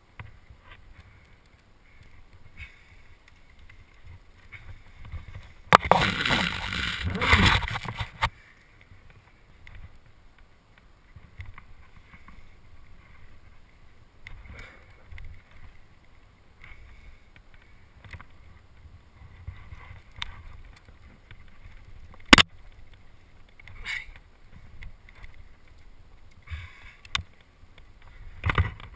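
Wind buffeting and handling noise on a head-mounted camera's microphone while a climber moves on granite. About six seconds in comes a loud rushing burst lasting about two seconds, and about twenty-two seconds in a single sharp click, with a few softer scrapes and knocks near the end.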